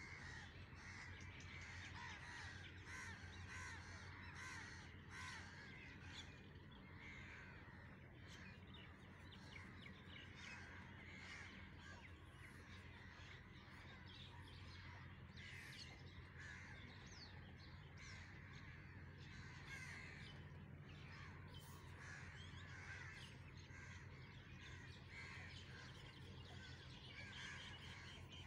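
Faint chorus of crows cawing, many short overlapping calls with no break, over a steady low hum.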